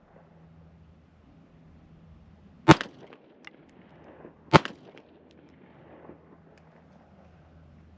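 Two pistol shots from a 9mm Springfield Armory Prodigy, about two seconds apart, fired with Federal HST hollow-point defensive rounds.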